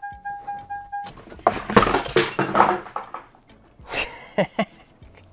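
Car's warning chime beeping for about a second, then a rough, loud burst of scraping and rattling noise for about two seconds, followed by a few sharp knocks.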